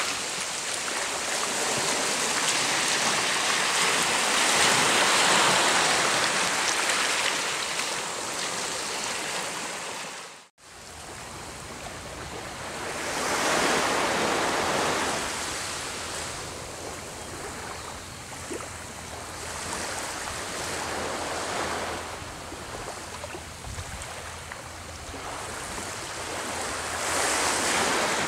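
Small waves washing onto a beach, each wash swelling and fading over a few seconds. The sound cuts out for a moment about ten seconds in, then comes back quieter with slower, separate washes.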